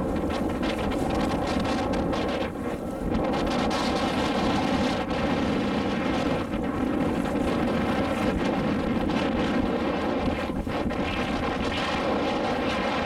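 A motorboat's engine running steadily, with wind buffeting the microphone.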